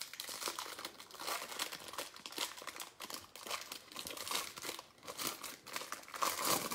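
Plastic wrapping of 2019-20 Mosaic basketball trading-card packs being crinkled and torn open by hand, an irregular run of small crackles.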